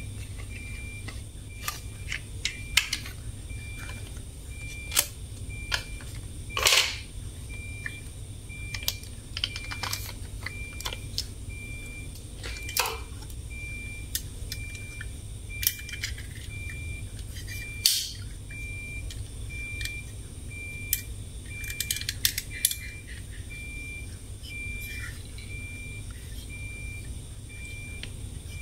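Plastic toy vehicles being handled: scattered sharp clicks and knocks of plastic parts, with a louder clack about seven seconds in and again near eighteen seconds. Under it a high beep repeats steadily about twice a second.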